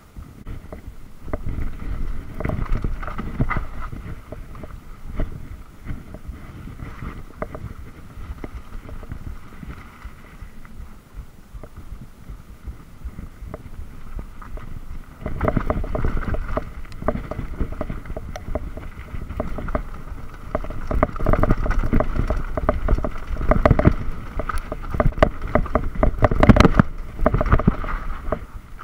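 Mountain bike rolling down a rough dirt forest trail: tyre noise with the bike rattling and knocking over bumps, and wind on the microphone. It grows louder and rougher about halfway through.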